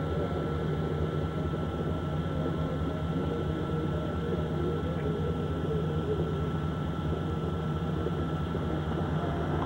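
Steady low engine drone of a slowly moving vehicle, heard from on board, with a thin constant high tone running over it.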